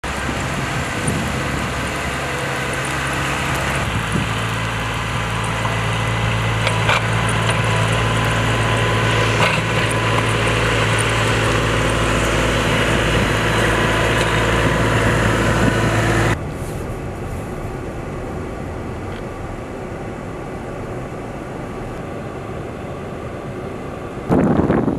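Snowplow engine running steadily as the blade pushes snow, growing louder about 4 s in. About 16 s in it gives way abruptly to quieter, steady traffic noise from a slow queue of cars and lorries on a snowy road, and a gust of wind buffets the microphone near the end.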